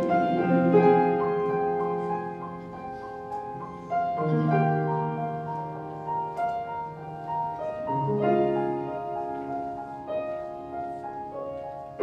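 Piano accompaniment playing on its own in a choral piece: chords and a higher melody line, with a deep bass note struck about every four seconds and each note ringing away.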